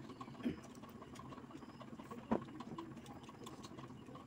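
Two people eating biryani with their hands: small clicks of chewing and of fingers mixing rice on plates. Two short, louder knocks about half a second and a little over two seconds in.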